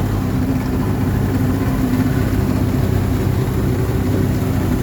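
Outboard motor running steadily, a constant low drone with no change in pitch.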